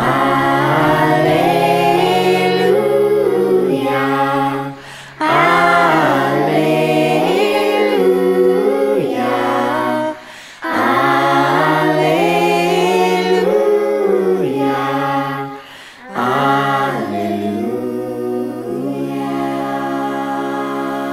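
Children's choir singing a Scottish Gaelic carol unaccompanied, in four phrases with short breaths between, the last ending on a long held chord.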